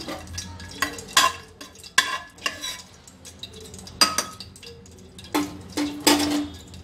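A steel spoon stirring whole spices (bay leaf, cardamom, cloves) in hot ghee and oil in an aluminium pressure cooker, with several sharp scrapes and clinks against the pot's bottom and the spices sizzling in the oil.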